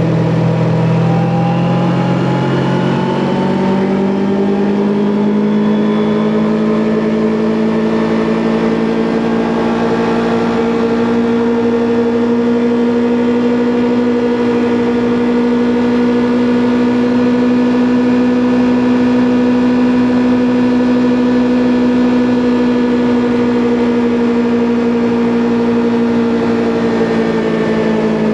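Kawasaki Ninja 400's parallel-twin engine pulling up through the revs over the first few seconds, then holding a steady cruising note that eases off slightly near the end.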